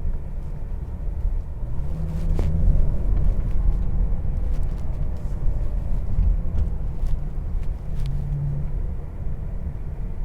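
Low, steady rumble of a Bentley Continental GT on the move, heard inside its well-insulated cabin: road noise with the 6.0-litre W12 engine humming underneath. The engine hum rises briefly about two seconds in and again near eight seconds, and a couple of light clicks come about two and a half and eight seconds in.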